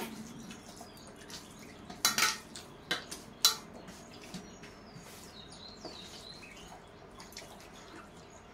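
Hands mixing rice and curry on stainless steel plates: a few sharp clinks and scrapes of steel plates, loudest about two and about three and a half seconds in, with softer handling noises between.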